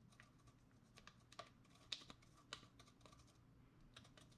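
Faint, irregular light taps and scratches of a pencil point pressing and rubbing on tape to find the holes beneath it.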